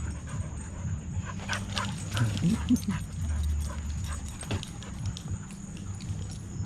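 Dogs barking and whimpering in short, scattered yips over a steady low rumble.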